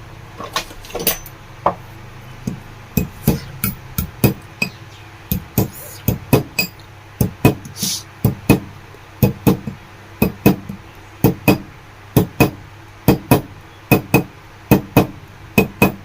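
Hammer tapping the metal bush plate of a table fan motor, a long run of sharp light blows, irregular and often in pairs at roughly two a second, knocking the plate's widened edge back into shape.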